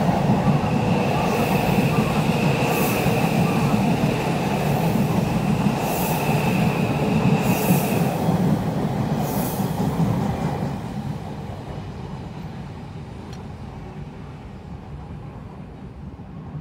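Odakyu Romancecar EXEα train running past at close range: rumbling wheels with a steady high-pitched squeal and a rushing hiss that swells again and again as the cars go by. The sound drops away sharply about ten and a half seconds in as the last car passes, leaving a fainter rumble.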